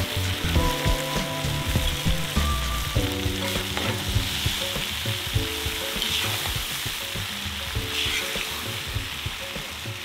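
Zirvak for plov frying and sizzling steadily in a kazan, with background music playing held notes over it.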